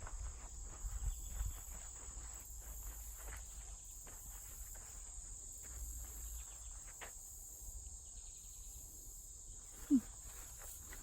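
Footsteps on a woodland trail over a steady high drone of crickets and other insects, with a low rumble underneath. About ten seconds in, a short falling low sound stands out as the loudest moment.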